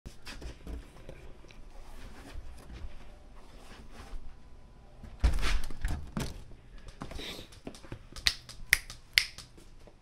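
Close handling noise of a camera being fumbled with: rustling, a loud bump about five seconds in, then three sharp clicks near the end.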